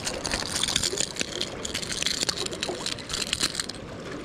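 Seawater washing and fizzing among jetty rocks, dotted with short clicks and taps; the hiss drops away near the end.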